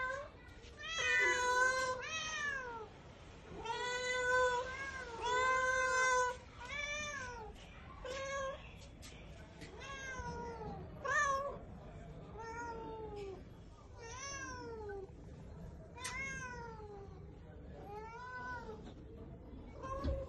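A cat meowing over and over, a dozen or more calls about a second apart, each rising and then falling in pitch. The longest, most drawn-out meows come in the first six seconds.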